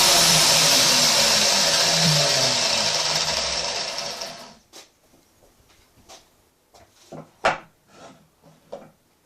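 Angle grinder running through a cut with a harsh, steady noise that dies away over about a second, some four seconds in, as the tool stops. Then a series of light knocks and clicks from the work being handled, one sharper knock among them.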